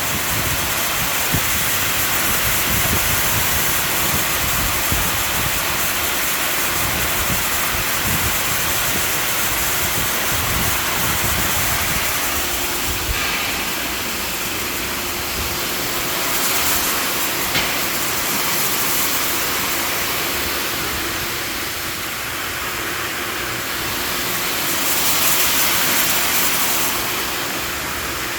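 Upper and lower water jets of an LVP.800 whole-lettuce washing machine spraying, a steady hiss of water with small swells in loudness.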